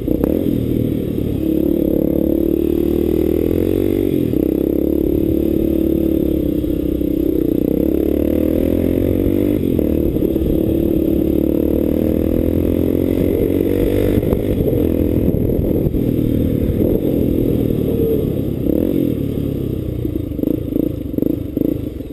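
Motorcycle engine running under way, its revs rising and falling with the throttle. Near the end it slows and the engine note turns choppy as it eases off toward idle.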